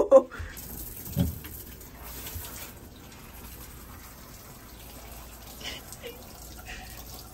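Water running and splashing as a soap-soaked dress is hand-washed in a bathroom sink, with one short low thump about a second in.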